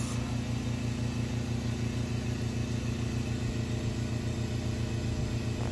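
Air compressor of a hyperbaric chamber running: a steady low hum with a fast, even pulse.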